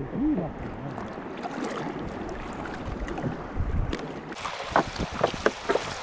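Kayak paddle dipping and pulling through sea water, with splashes and drips off the blade, over wind on the microphone. The splashing grows sharper and brighter about four seconds in.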